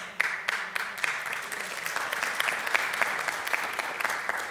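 Congregation applauding: many hands clapping at once, starting suddenly and dying away near the end.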